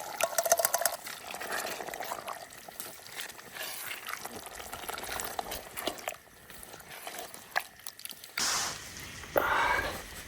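Yogurt being added to a cooking pot: wet pouring and dripping with a dense run of small clicks in the first second. Two short, louder rushes of noise come near the end.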